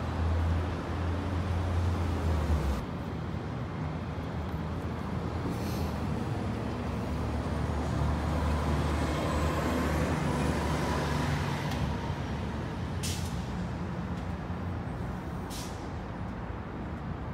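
Parked semi truck's diesel engine idling with a steady low hum, louder for the first few seconds. Short sharp hisses of air break in about six, thirteen and fifteen seconds in.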